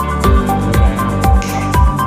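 Electronic background music with a steady beat: a deep kick drum about twice a second over held synth notes, with a short burst of hiss near the end.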